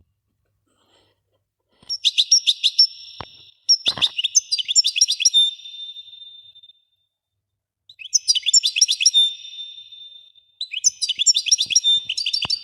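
A songbird singing four phrases of rapid, high chirping notes, each two to three seconds long, with short silences between them. A couple of faint clicks or knocks also sound.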